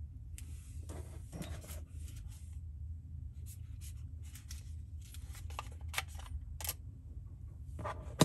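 Handling noise from a Sony MZ-1 MiniDisc recorder's plastic case: a string of short scratches, rubs and small clicks as it is picked up and turned over in the hands, ending in one loud, sharp click near the end.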